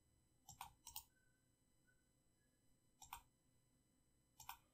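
Computer mouse buttons clicking: a few short, sharp clicks, some in quick pairs, spread over otherwise near-silent room tone.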